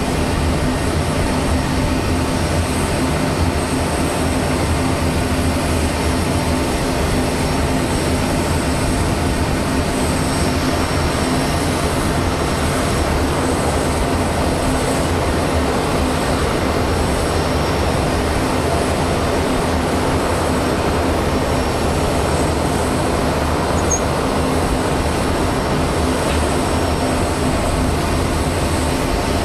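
Steady engine noise on an airfield flight line: a continuous low rumble with a constant hum and a faint high whine, unchanging throughout.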